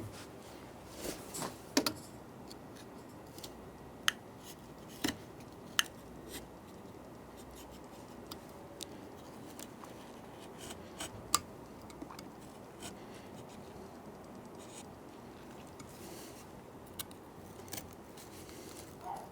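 Wood chisel worked by hand into wood, cutting the recess for a deadbolt strike plate: scattered light clicks and scrapes at an uneven pace, with no steady rhythm.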